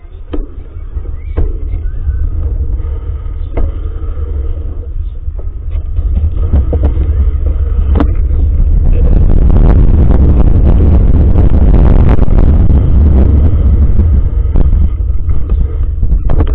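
Wind buffeting and road vibration rumbling on a bicycle's handlebar-mounted camera as the bike gathers speed. A few sharp knocks come in the first half, then the rumble grows much louder about six seconds in and stays loud.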